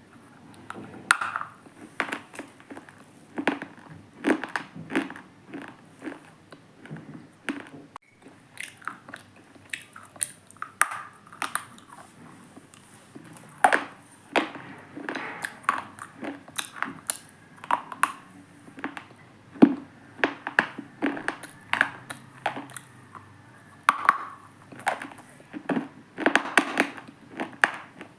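Unshaped lumps of soft stone being crunched: a long run of irregular sharp crunches and crumbles, one to three a second, with short pauses between them.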